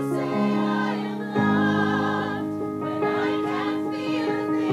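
A small women's choir singing a slow song in unison, with long held notes.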